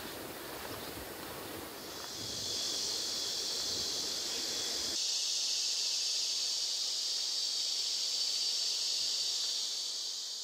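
A chorus of insects buzzing steadily at a high pitch, rising about two seconds in and holding. Low background noise underneath cuts off suddenly about halfway through.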